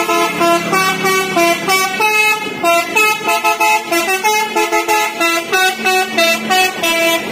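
Multi-tone 'telolet' bus horn playing a quick melody, its notes stepping up and down in short honks with brief gaps between them.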